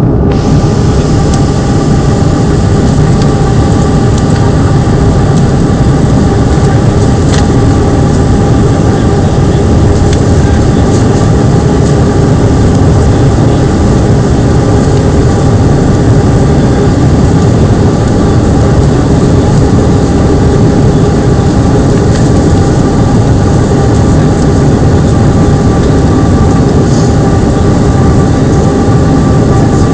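Airliner cabin noise in flight: a loud, steady roar of the engines and rushing air, with a faint steady hum running through it.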